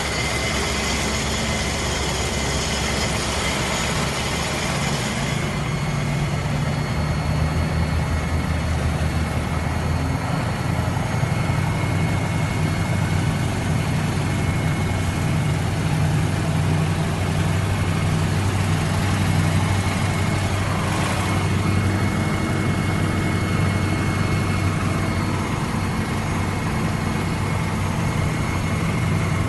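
A vehicle engine running steadily at low revs, a constant low hum with a hiss above it.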